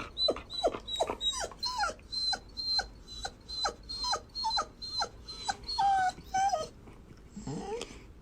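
A dog whining in a run of short cries, about two a second, each falling in pitch, then one rising cry near the end.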